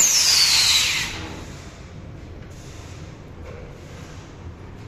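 A short burst of compressed-air hiss from the corner crimping machine's pneumatic cylinder, with a whistle that falls in pitch. It dies away after about a second.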